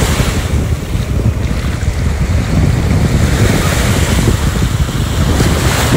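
Wind buffeting the microphone in gusts, with small waves washing onto the beach beneath it.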